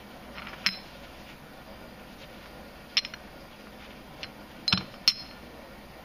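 Gold and silver bullion bars clinking against each other as they are handled: about five short, sharp metallic clicks, each with a brief ring.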